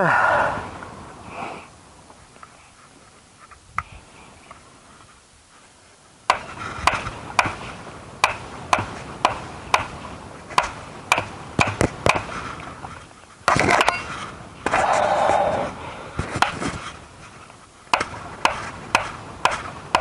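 A stake being driven into the ground with repeated sharp blows, about two a second, starting some six seconds in. The blows pause midway for a louder stretch of rough noise.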